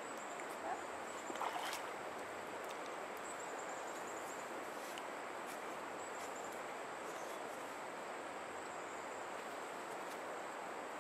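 Steady rush of the Neversink River flowing, with a few faint high chirps over it.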